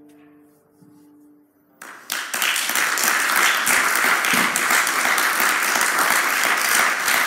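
The last chord of an acoustic guitar fading away, then an audience starts applauding about two seconds in, steady clapping that is the loudest sound.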